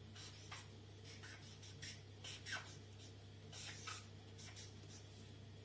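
Chisel-tip marker nib rubbing across paper in a series of short, quick strokes as letters are written, faint, over a steady low hum.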